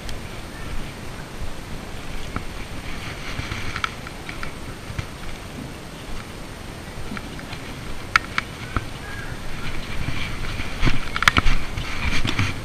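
Wind rumbling on a GoPro's microphone, with rustling and a few sharp clicks from the camera being handled. The clicks are loudest about two-thirds of the way through and near the end.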